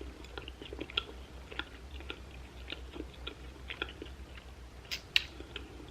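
Close-miked chewing of Pizza Hut chicken wings, with soft wet mouth clicks about two to three times a second and two sharper clicks near the end.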